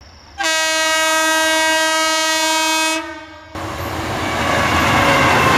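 A real train's horn sounds one long steady note for about two and a half seconds, then, after a short pause, the noise of the train running takes over.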